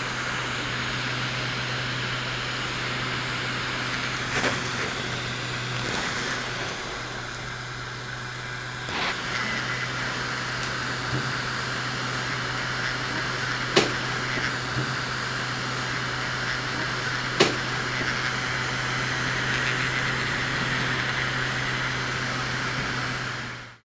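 A small electric fan motor running steadily with a low hum and an airy whir, with four sharp clicks scattered through it. It cuts off suddenly near the end.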